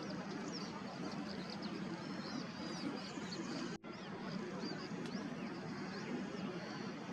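Many small birds chirping and twittering in quick, overlapping high notes over a steady background hiss, which breaks off briefly a little past the middle.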